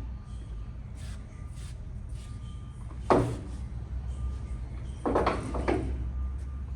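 Large hollow-spindle lathe humming low and steady with a faint whine, with a sharp metal knock about three seconds in and a quick run of three knocks about five seconds in.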